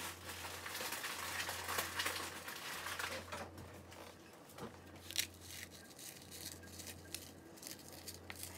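Crushed Oreo cookie pieces being sprinkled and handled over a container of ice cream: a rustling, crinkling noise for the first three seconds or so, then scattered light clicks and taps.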